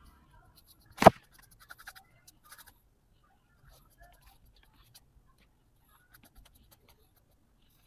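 Pencil scratching and ticking lightly on paper in short, scattered strokes, with one sharp knock about a second in.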